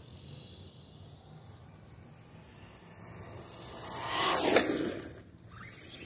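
Arrma Typhon Mega 1/8-scale electric RC buggy, run on a 3S LiPo, driving past close at speed about four seconds in. Its motor whine rises and then falls in pitch as it goes by, with tyre noise on asphalt. It drops away briefly, then the whine builds again near the end as it comes round for another pass.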